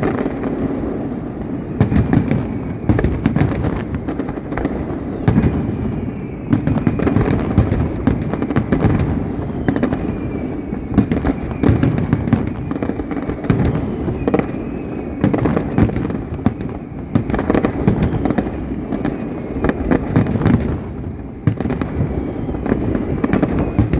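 Fireworks display: a dense, continuous barrage of bangs and crackles, several a second, over a steady rolling rumble with no let-up.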